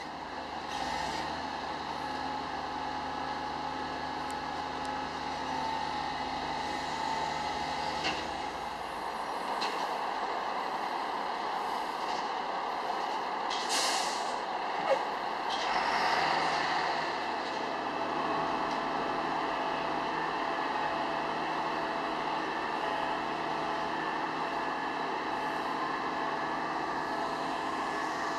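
Hi-rail maintenance truck's engine running steadily, with a short hiss of air around the middle, a sharp click just after, and a longer hiss a couple of seconds later.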